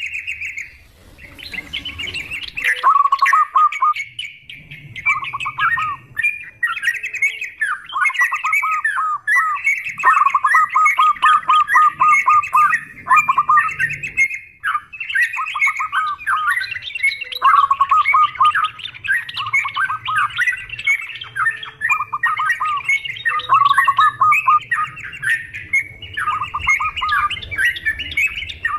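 Yellow-vented bulbuls (trucukan) and zebra doves (perkutut) calling together in a dense, unbroken chorus: bubbly chattering phrases mixed with quick runs of repeated lower notes.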